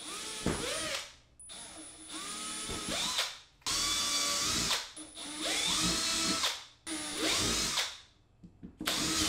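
Cordless drill boring holes through aluminum angle iron, run in several short bursts, each spinning up with a rising whine and then stopping.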